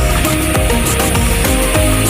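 Background music with a steady drum beat and heavy bass under held notes.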